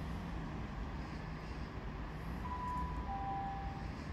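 Steady low rumble of a railway station platform, with a train approaching in the distance. About two and a half seconds in, two short clear tones sound one after the other, the second lower.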